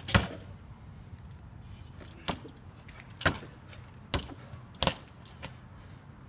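BMX bike hopping onto and across a picnic bench: a series of sharp knocks as the wheels land and strike the bench, the loudest about a quarter second in, then five more spaced roughly a second apart.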